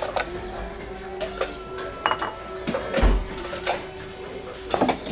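Scattered clinks and knocks of bowls and utensils as a small bowl of menudo is served up at a food stall, with a low thump about three seconds in and a steady hum underneath.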